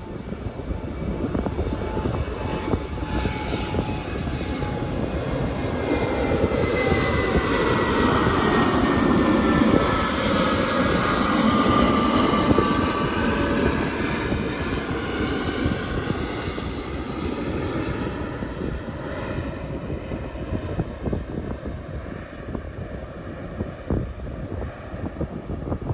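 An airliner flying low overhead, its engine noise swelling up, peaking about halfway through, then fading, with a whine that falls in pitch as it passes. Gusty wind buffets the microphone underneath.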